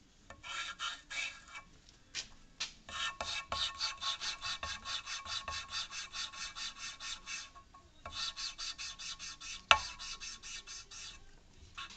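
An engine valve being lapped by hand into its seat in a Chevrolet Niva cylinder head. It gives a rapid back-and-forth rasping of metal on metal through abrasive paste, about five strokes a second, in three runs. A single sharp knock comes near the end.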